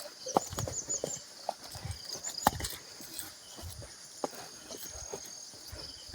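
Irregular knocks and clatters, the loudest about half a second and two and a half seconds in: objects and fittings rattling as a building shakes in a strong earthquake. Short high chirps sound through them early on.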